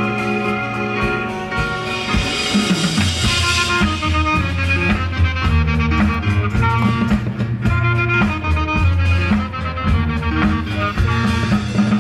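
High school marching band playing live: sustained brass chords over drums and percussion. A loud swell comes in about three seconds in, and the low end stays strong after it.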